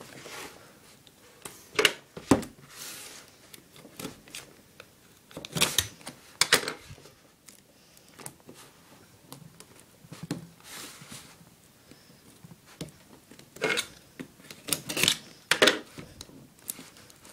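Packing tape being torn and pulled from a cardboard box while the box is handled: a series of short rasping tears and sharp knocks with pauses between.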